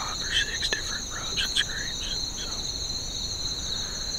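Crickets singing in a steady, high-pitched insect chorus, with a few short, lower chirps and faint clicks in the first couple of seconds.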